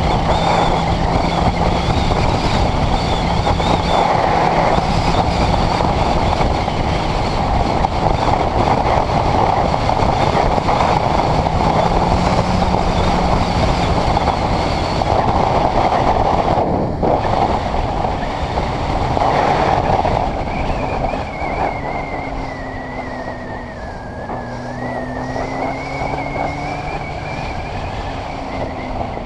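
Honda CBR600RR inline-four running on the move under heavy wind rush over the camera microphone. About twenty seconds in, the wind eases and a pitched engine note dips and rises again as the bike slows in traffic.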